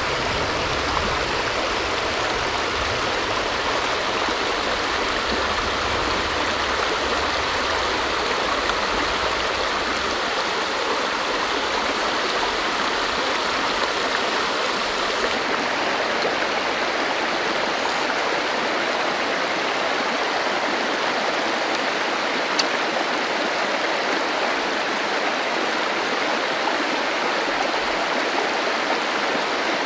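Shallow rocky stream running over small rapids: a steady rush of water.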